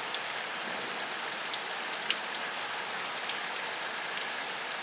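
Heavy rain falling in a steady downpour, with many sharp drips and splashes ticking through it.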